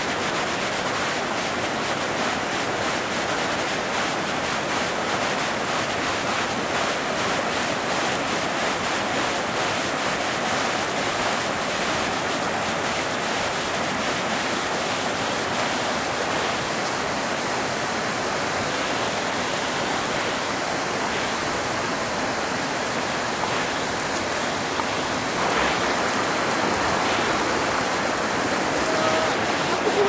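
Shallow river rushing steadily over a wide bed of flat, pothole-worn rock and boulders, a continuous rushing noise that grows slightly louder about three-quarters of the way through.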